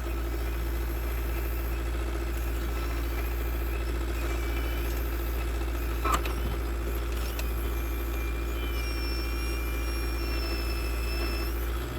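Diesel engine of a CAT 236B skid steer running steadily, with a single short knock about halfway through and a faint thin whine in the second half.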